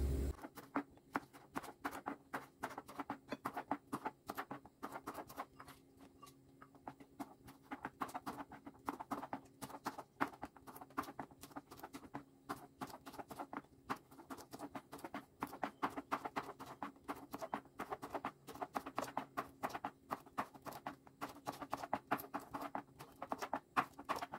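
Kitchen knife slicing green beans on a plastic cutting board: a quick, uneven run of light taps, several a second, with brief pauses.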